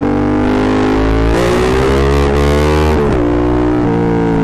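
Yamaha MT-07's 689 cc parallel-twin through a full Akrapovic exhaust, running under throttle with its pitch climbing steadily, then dipping sharply about three seconds in and holding steady again. Loud and distorted, the exhaust overloading the microphone.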